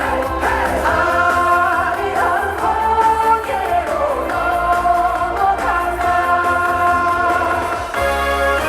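A trot song performed live, with a singer holding long notes over a backing track with a steady bass line.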